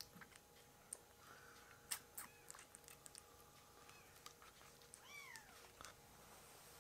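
A very young kitten's small wet clicks and smacks as it suckles at a milk bottle, then a single thin mew about five seconds in that rises briefly and falls away.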